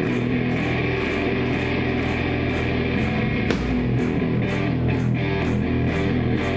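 Rock band playing live: electric guitars over drums, with cymbals struck on a steady beat and no singing.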